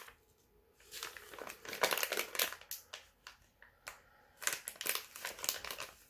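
Disposable plastic piping bag crinkling and rustling in the hands as it is opened and filled with bean paste, in irregular spells with a short pause about halfway.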